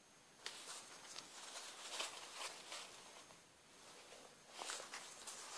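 Denim jeans being handled, the stiff fabric rustling and scraping quietly in a string of short scratchy bursts that begin about half a second in, ease off briefly past the middle and pick up again near the end.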